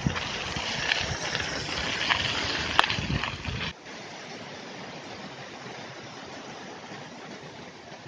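Riding noise from a bicycle on a rough, potholed dirt road: rumbling wind and road noise with a few rattling clicks, a sharp one near three seconds. Just before four seconds it cuts off suddenly to a quieter, steady hiss.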